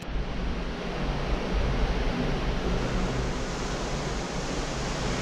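Steady rush of wind and sea heard from a cruise ship's balcony at sea, with a low rumble of wind buffeting the microphone.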